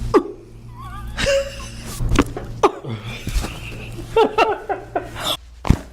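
A patient laughing in short, broken bursts just after a chiropractic adjustment, with several sharp cracks in between.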